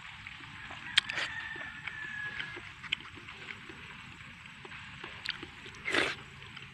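Close-up chewing and wet mouth sounds of a man eating, with small ticks throughout. There is a sharp click about a second in and a louder bite near the end.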